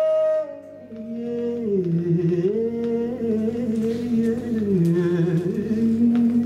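A song playing from a 45 rpm single on a Fidelity UA7 record player. A long held note ends about half a second in. After a brief dip, a slow melody of long held notes steps down and back up.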